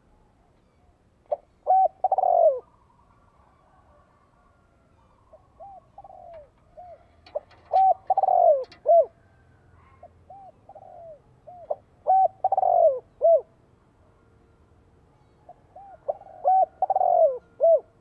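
Spotted dove cooing: four phrases of repeated falling coos, each opening with a few softer notes and building to louder rolling coos.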